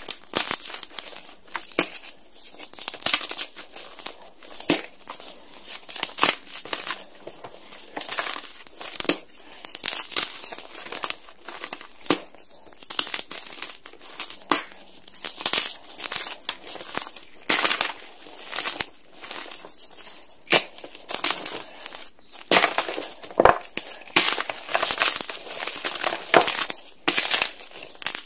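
Blocks of dyed gym chalk crushed and crumbled by hand: a steady run of dry, crispy crunches and crackles, coming thicker and louder in the last few seconds.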